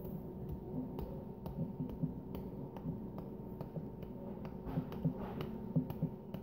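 Light slaps of a hand against a face, repeated about twice a second, over a steady low hum.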